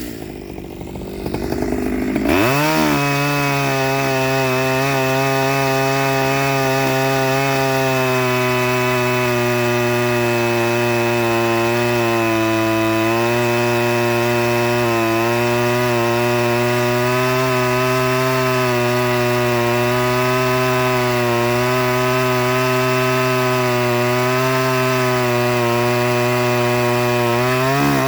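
Stihl 009L two-stroke chainsaw revved up to full throttle about two seconds in and held there through a long cut in wood, its pitch dipping slightly under load, then dropping back off throttle at the very end.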